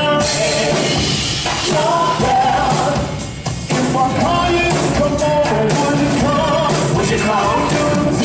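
Live concert music: a vocalist singing over loud backing music, with a short dip about three seconds in before the music comes back full.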